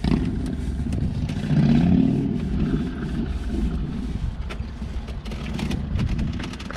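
Steady low rumble of a parked car's engine idling, heard inside the cabin, with scattered small clicks and rustles of food packaging. A short, louder pitched hum comes about two seconds in.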